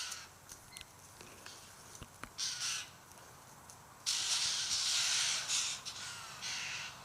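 White-winged choughs calling with grating calls that have no clear pitch: a short burst a little after two seconds in, a long one lasting about two seconds from about four seconds in, and a shorter one just after.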